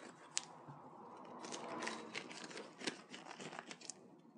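Disposable gloves being pulled on and tugged into place: faint rustling and crinkling, with several sharp clicks of the glove material.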